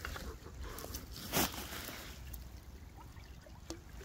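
Shallow creek water flowing and trickling, with a brief harsh burst of noise about a second and a half in and a few light clicks.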